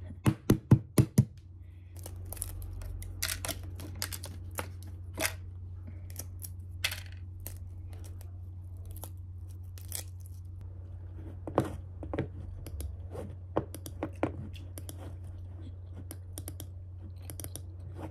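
Light clicks and knocks of small objects being handled, with a quick run of sharp clicks in the first second and scattered ones after, over a steady low hum.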